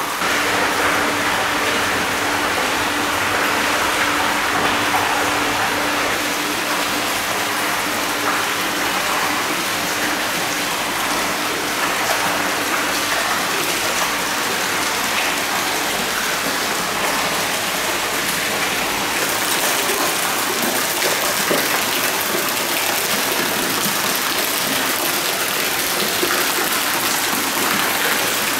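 Hot-spring water pouring from a bamboo spout into a bath, splashing steadily without a break.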